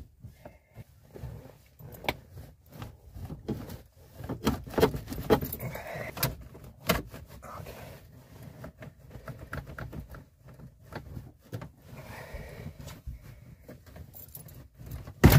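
Irregular metallic clinks, rattles and knocks from hand tools and loose metal parts being worked under a vehicle's interior. There is a sharp, loud knock near the end.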